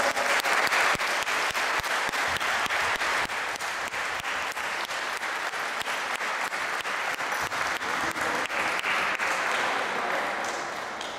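Group of people applauding, with claps coming at a steady beat of about four a second; it dies down near the end.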